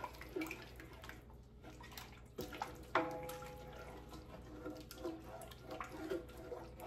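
Flour-and-broth gravy simmering in a skillet, with a few light clicks of a utensil against the pan, two of them about half a second apart a little past the middle.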